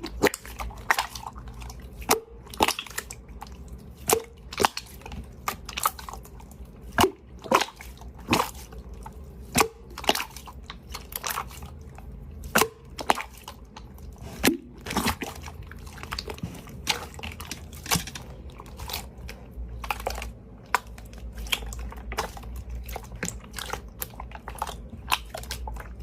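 Slime being pressed, stretched and poked by hand, giving irregular sharp sticky pops and clicks, roughly one or two a second, some much louder than others.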